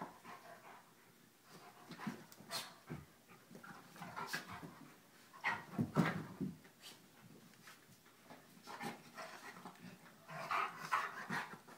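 An 80-pound dog and a 15-pound puppy play-wrestling: dog panting with irregular short sounds, loudest about six seconds in and again near the end.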